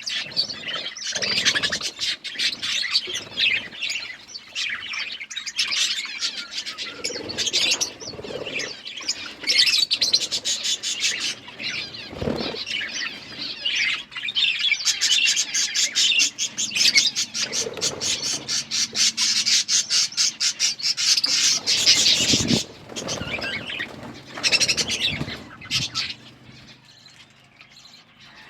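Budgerigars chirping and chattering continuously, with long runs of fast, clicking repeated notes; the chatter dies down near the end.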